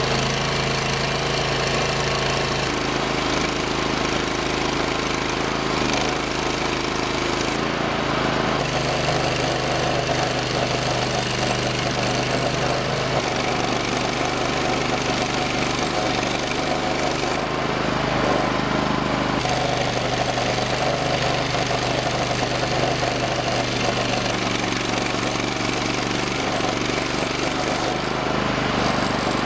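Hudson Warrior portable band sawmill's gas engine running steadily under load as the band blade saws boards from a log, its pitch shifting slightly every few seconds.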